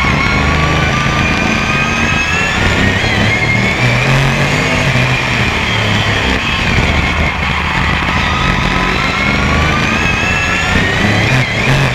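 BRISCA F1 stock car's V8 engine heard from on board while lapping, the engine note rising under acceleration and falling off as the throttle is lifted, in two long swells.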